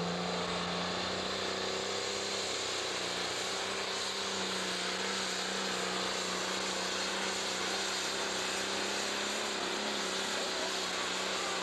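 Diesel engine of a green John Deere pro stock pulling tractor running flat out under full load as it drags the weight-transfer sled, a steady high-revving drone that holds nearly the same pitch throughout.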